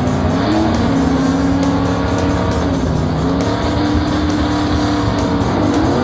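Cartoon race car engine sound effect running steadily, its pitch rising twice as if revving, over background music.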